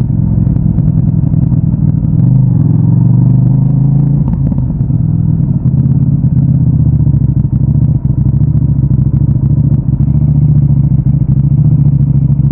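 CFMOTO 800NK Advanced's parallel-twin engine through its stock exhaust, running at low revs after slowing down, then holding a steady, near-idle speed from about five seconds in, with a light clatter.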